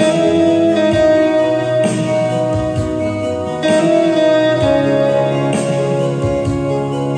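Instrumental guitar music: a slow melody of long, held notes over chords, with a new note or chord about every two seconds.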